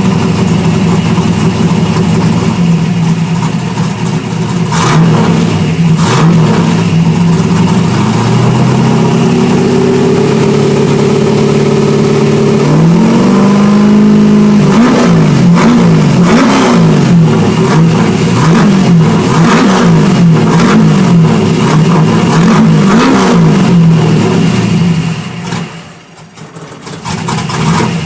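Holden 253 V8 running and being revved, its pitch rising and then swinging up and down in repeated blips. Near the end it dies away, starved of fuel because the electric fuel pump was left switched off.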